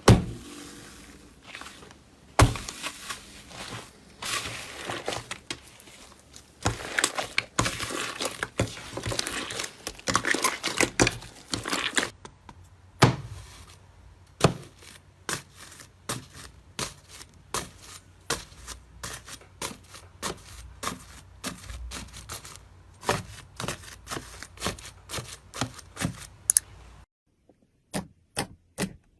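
Slime being handled, pressed and stretched, giving crackling and sharp clicking pops. Dense crackling stretches give way after about 13 seconds to a run of separate clicks, which break off briefly near the end.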